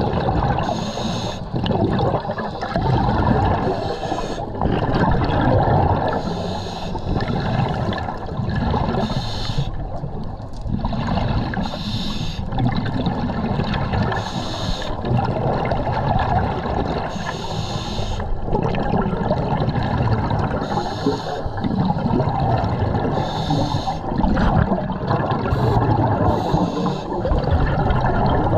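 A diver breathing through a scuba regulator, heard underwater through a camera housing: a burst of hiss and bubbles about every three seconds over a steady low rumble of water.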